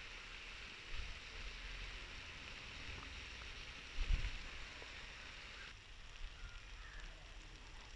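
Faint sizzling and bubbling of thick tomato chicken masala cooking down uncovered in a wide pan to dry out, with a low thump about four seconds in. The hiss drops a little under six seconds in, leaving a few faint crackles from the wood fire.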